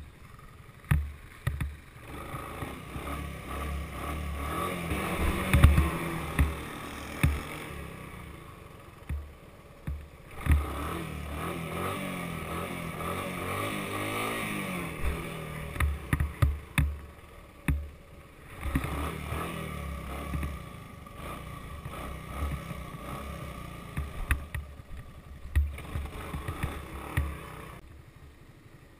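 Honda three-wheeler engine running under a rider, revving up and down as it is ridden, with heavy wind buffeting on the microphone and scattered sharp thumps. It eases off, going quieter, about eight seconds in and again near the end.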